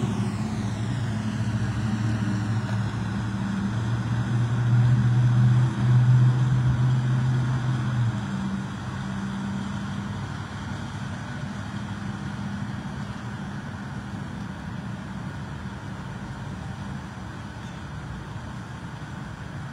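A vehicle's engine running close by and pulling away, its steady low sound fading after about eight seconds.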